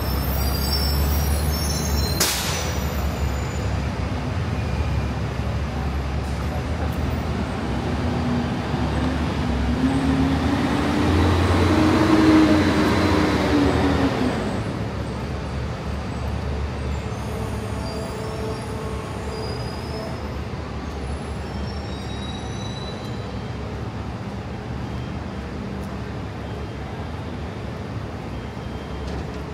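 City street traffic. A short, sharp hiss comes about two seconds in. Around the middle a heavy vehicle passes close, its engine note rising and then falling as it goes by, before the traffic settles back to a steady hum.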